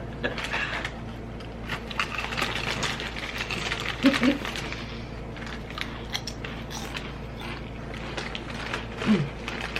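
Potato chips being crunched while chewing: a steady run of small crackling crunches, with a brief hum-like vocal sound about four seconds in and again near the end.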